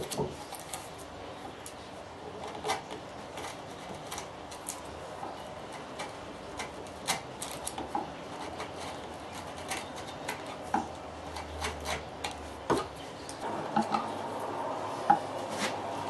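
Scattered light taps and clicks of hand work on small wooden parts, irregular and uneven in strength, with a steadier rubbing noise coming in near the end.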